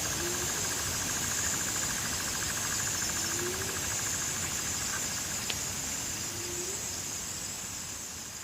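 Hyena giving short rising whoops, three of them about three seconds apart, over a steady high chorus of insects. The sound fades out near the end.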